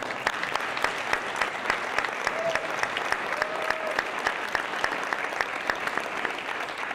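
Audience applauding: many people clapping at once, a dense steady patter.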